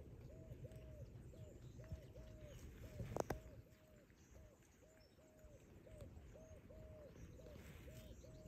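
Faint repeated call of short, low hooting notes, two or three a second at an even pitch, typical of a bird. A single sharp knock sounds a little over three seconds in.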